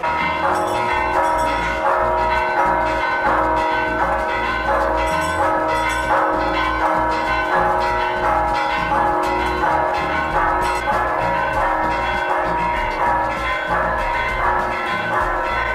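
Church bells pealing: a quick run of repeated strikes at several pitches, ringing on over each other, starting and cutting off abruptly.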